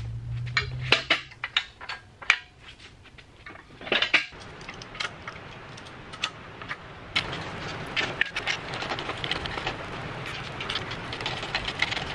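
Steel chain clinking and jangling as it is handled and wrapped around a heavy electric motor, with scattered metallic knocks; the clinking grows dense and nearly continuous about seven seconds in.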